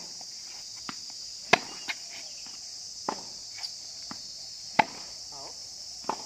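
Tennis rally: a ball struck by rackets back and forth, with sharp hits about every one and a half seconds and softer bounces between. A steady high insect drone runs underneath.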